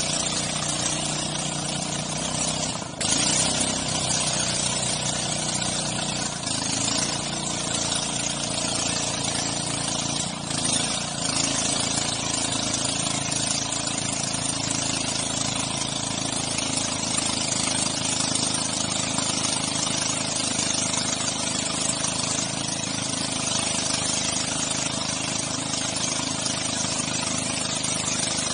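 Outboard motor of a motorized dugout canoe running steadily under way, under a constant rush of water along the hull.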